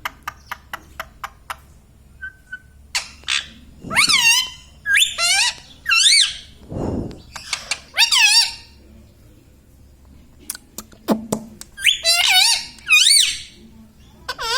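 Indian ringneck parrot vocalising in high, wavering, warbling calls, in two groups. A quick run of sharp clicks comes at the start.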